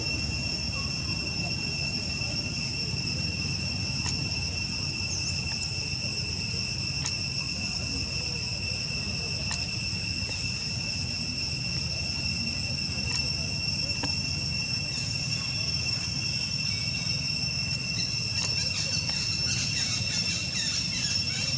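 Steady, unbroken high-pitched insect drone over a low background rumble. Short high chirps join in near the end.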